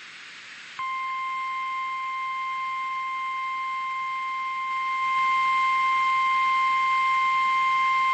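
Weather-radio warning alarm tone: one steady, unwavering high beep near 1 kHz that starts about a second in over radio static hiss and gets louder about five seconds in. It announces a severe thunderstorm warning.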